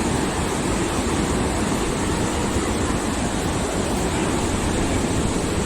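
Large waterfall's steady rush of falling water, an even, unbroken roar.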